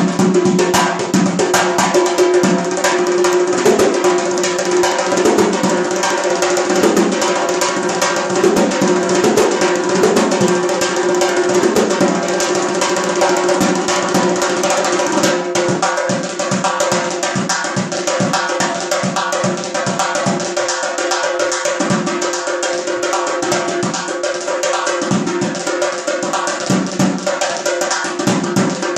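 Azerbaijani nağara, a rope-laced cylindrical hand drum, played with fingers and palms in a fast, dense rhythm, over steady held tones.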